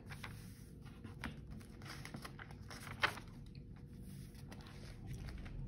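Glossy catalogue pages being turned and handled: faint paper rustling with a few soft clicks, the sharpest about three seconds in.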